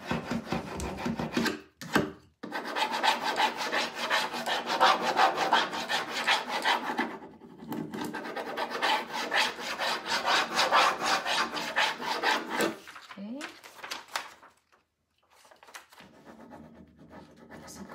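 A rub-on furniture transfer being rubbed down through its plastic backing sheet onto a painted wooden bench panel: fast, repeated rubbing strokes that burnish the design onto the surface, stopping about thirteen seconds in.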